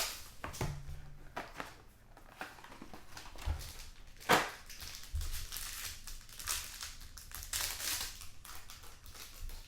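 Trading cards and their plastic sleeves and wrapping being handled: irregular rustling and crinkling with small taps, and a sharper snap about four seconds in.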